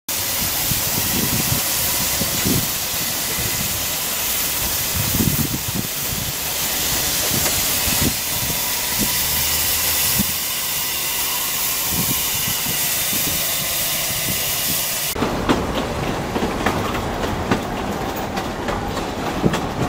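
Steady hiss of steam from a standing steam locomotive, with scattered low thumps. About fifteen seconds in it cuts to riding aboard the moving train: wheels clicking and clattering over the rail joints.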